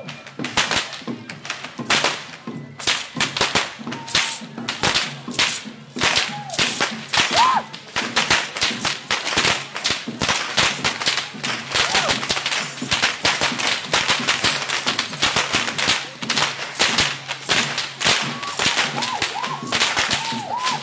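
Many tlacololero dancers' braided whips cracking in a rapid, overlapping volley, several cracks a second, with a few short whistle-like notes near the end.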